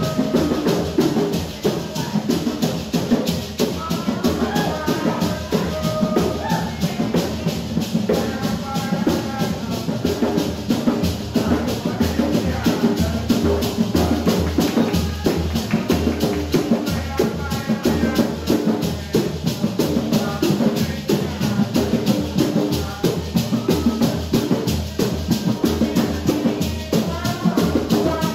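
Garifuna hand drums playing a fast, steady beat, with voices singing over them.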